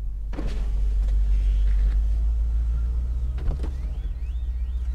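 BMW M850i Convertible under way with the top down: its 4.4-litre twin-turbo V8 running under a heavy, steady low wind and road rumble, with a couple of short knocks.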